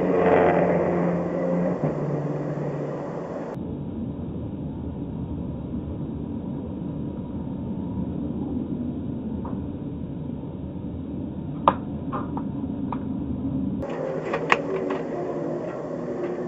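Steady road and engine noise of a car driving on a highway, heard from inside through a dashcam, with an engine hum that drops in pitch about two seconds in. A few sharp clicks come near the end.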